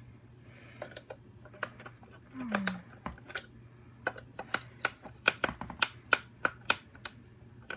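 Irregular sharp clicks and taps of small hard objects, coming faster in the second half, over a low steady hum; a brief falling vocal sound about two and a half seconds in.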